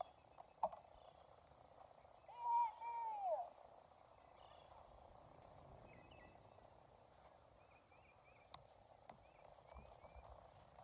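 Faint outdoor ambience with scattered small chirps. There is a sharp click just under a second in, a short call from a distant voice at about two and a half seconds, and two lighter clicks near the end.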